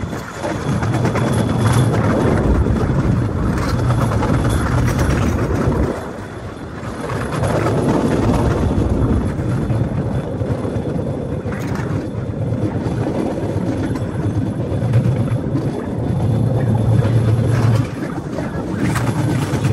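Cambodian bamboo train (lorry) riding along the rails: its small engine running steadily, mixed with the rumble of the wheels on the track. The noise dips briefly about six seconds in, then carries on at the same level.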